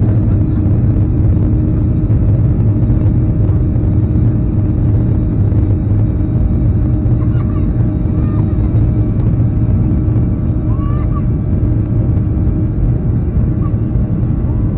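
Cabin noise of a Boeing 737-800 taxiing: a steady, loud low rumble from its CFM56-7B engines at low power, with a constant hum, and a few faint brief high sounds in the cabin.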